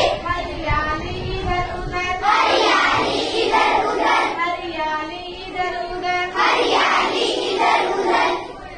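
A group of children singing a Hindi children's action song in unison, led by a woman teacher's voice.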